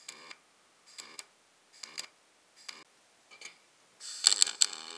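Arc welding sheet steel in short bursts: five brief crackling, buzzing arcs about every 0.8 s, then a longer, louder weld about a second long near the end.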